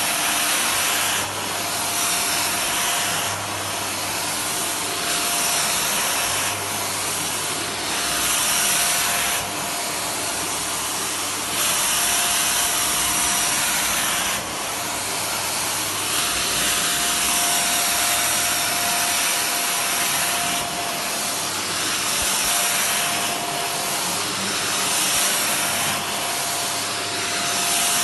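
Vacuum cleaner running on carpet with a steady whine, its sound shifting up and down in level every second or two as it is worked back and forth.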